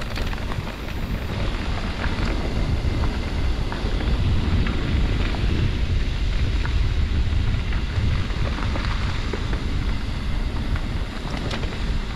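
Wind buffeting the microphone over the steady rumble of a mountain bike riding over rough ground, with scattered clicks and rattles.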